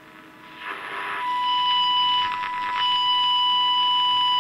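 Small speaker of a Qiuxin HX108-2 medium-wave kit radio: a brief rush of hiss, then about a second in a steady, loud, high-pitched test tone comes in and holds. This is the radio being tuned onto the signal generator's modulated 600 kHz test signal during alignment.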